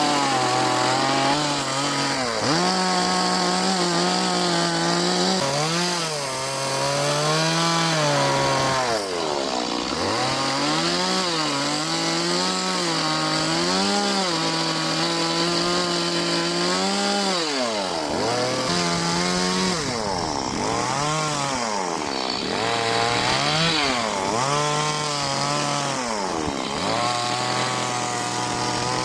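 Chainsaw running and carving wood, its engine speed rising and falling again and again as the throttle is worked and the chain bites into the cut.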